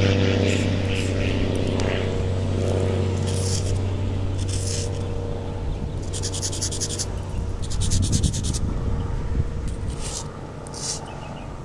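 Chalk scraping on pavement in short strokes, including a quick, rapid scratching run about six seconds in. A steady low hum fades away over the first few seconds.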